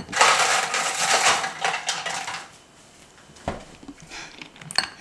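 Ice cubes clattering and rattling against each other for about two and a half seconds, followed by a dull knock and a couple of light clicks near the end.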